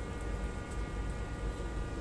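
A steady machine hum with a low rumble, and faint irregular crisp ticks of rabbits chewing leafy greens.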